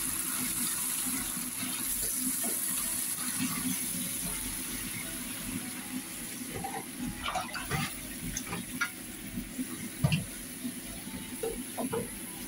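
Garlic, ginger and onion paste sizzling in hot oil, stirred with a wooden spatula. The sizzle is steady and eases off about halfway through, after which the spatula scrapes and taps against the pan a few times.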